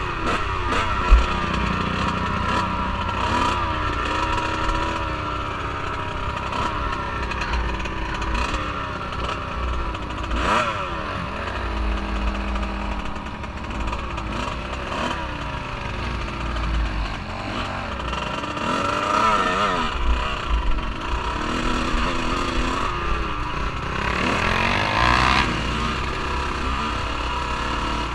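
Off-road vehicle engine running under changing throttle, its pitch rising and falling again and again as it is ridden.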